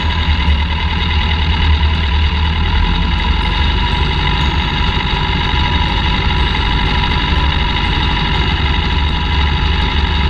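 Light aircraft engine and propeller running steadily at low power, heard from inside the cockpit while taxiing on the ground.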